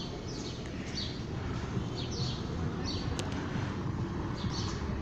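Small birds chirping repeatedly in short, high, downward-sliding calls over steady low background noise, with one brief click about three seconds in.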